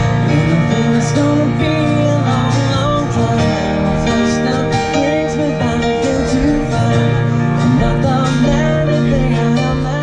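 Live country-style band: a man singing over a strummed acoustic guitar and other instruments.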